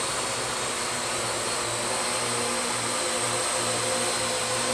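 Parrot AR.Drone 2.0 quadcopter hovering: its four geared motors and propellers whir steadily with a high whine, growing slightly louder as it comes closer. All four props are running, the repaired motor included, which shows the fix worked.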